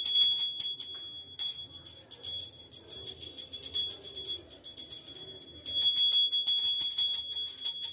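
Brass puja hand bell (ghanta) rung rapidly and continuously, its clapper striking many times a second with a bright ringing, with a short pause about five seconds in, as it accompanies the offering to the deity.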